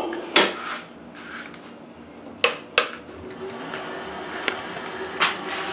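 A few sharp metal clicks and clunks, about five spread over a few seconds, from handling a metal lathe's carriage and controls, over a faint steady hum.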